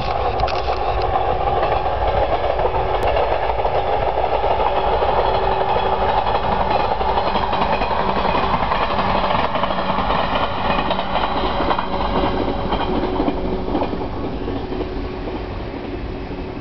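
Electric multiple-unit local train running past at a distance, its sound holding steady and then fading away over the last few seconds as it draws off.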